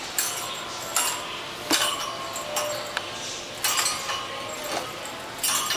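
Stainless-steel wire cage door clinking and rattling in several irregular sharp strikes as a cat bats and jumps at a feather wand toy against the bars.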